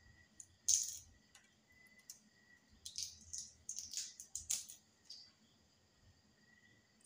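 A metal spoon tapping and cracking the shell of a boiled balut egg: one sharp tap about a second in, then a run of quick crackling clicks in the middle.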